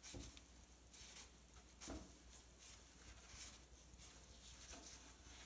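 Near silence with faint rubbing and rustling of a cloth rag wiping oil drips off the engine block, and a few soft knocks.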